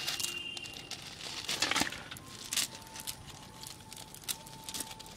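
Wet handling noises of a freshly caught fish: irregular crackles, clicks and rustles as it is handled and put into an aluminium basin of water with other fish, the loudest burst about two seconds in.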